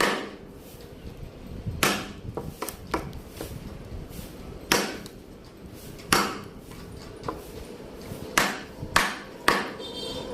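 Hand tools striking wood: about a dozen sharp, irregularly spaced knocks, like hammer or mallet blows, some with a short ring after them.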